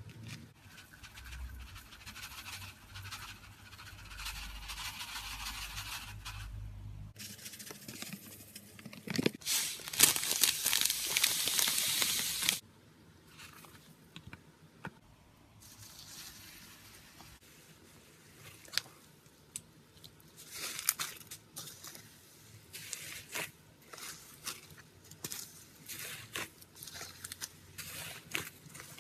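Slime mixed with Nerds candy being pressed and squished by hand, crackling and crunching with many small sharp clicks. A louder, dense hissing rustle runs for about three seconds around ten seconds in.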